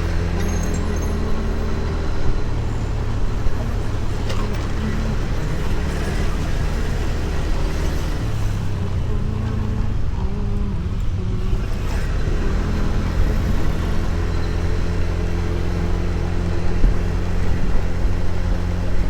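Small motor scooter engine running steadily on the move, with road traffic around it; the engine note shifts a little about halfway through.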